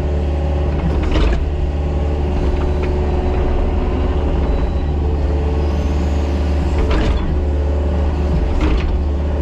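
Mini excavator's diesel engine running steadily, with a few sharp clunks from the machine about a second in, at about seven seconds and near the end.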